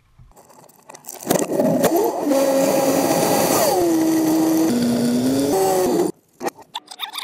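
Kitfox bush plane's Rotax engine and propeller running loud and steady, its pitch dropping partway through and rising again before the sound cuts off abruptly.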